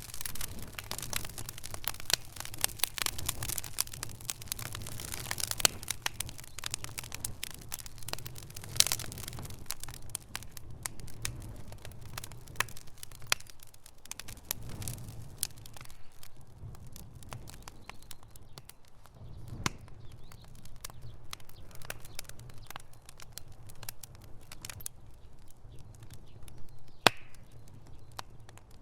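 Fire crackling and popping: quick sharp pops come thick and fast at first and thin out to scattered snaps after about ten seconds, with one loud single crack near the end.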